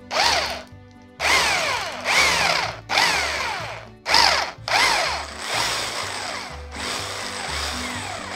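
Corded Bosch electric drill with a larger metal-cutting bit, widening a pilot hole in the end of an electric scooter's thin-walled metal handlebar. The trigger is pulsed in about six short bursts, the motor's pitch falling as it slows after each, then it runs more steadily from about five seconds in.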